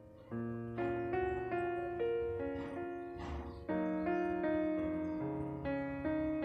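Background piano music: a gentle melody of struck notes, each sounding with a sharp start and fading away, about two notes a second.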